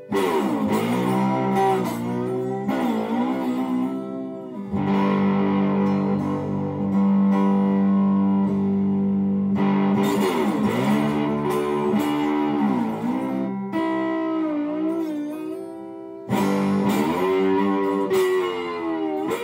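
Electric guitar, a Fender Stratocaster, played through a Pigdog Colosseum fuzz pedal (a recreation of the 1967 Vox Tone Bender) into a Gibson Falcon amp: thick fuzzed notes and chords that ring out long, with string bends and vibrato. New chords are struck about 5, 10 and 16 seconds in.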